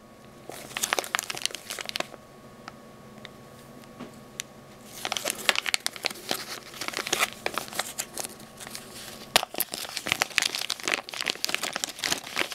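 Clear zip-top plastic bag crinkling as it is handled by hand, in bursts of crackle with a quieter few seconds in the middle.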